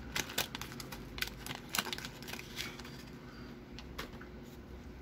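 Wax-paper wrapper of a 1987 Donruss baseball card pack crackling as it is torn open and pulled apart by hand. A quick run of sharp crackles over the first three seconds gives way to softer rustling.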